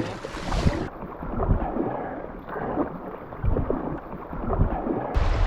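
Kayak being paddled on a river: water sloshing and splashing around the hull and paddle, with wind rumbling on the microphone.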